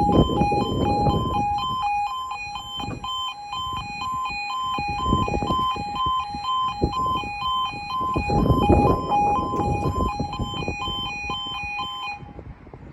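UK level crossing two-tone warning alarm (yodalarm) sounding a rapid, even high-low warble as the barriers come down, then cutting off suddenly near the end once they are lowered. Gusty wind noise rumbles underneath.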